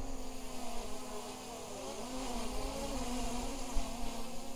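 DJI Mini 3 Pro drone hovering, its propellers giving a steady buzzing hum whose pitch wavers slightly.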